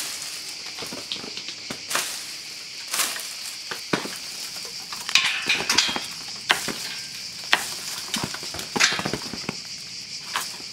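Almonds in their hulls dropping from a shaken almond tree and landing on a black woven plastic tarp: scattered sharp taps and patters, thickest around the middle. A steady high insect chorus runs underneath.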